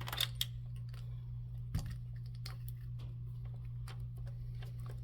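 A few scattered small clicks and taps of the power button's wiring and plug being worked loose by hand, over a steady low hum.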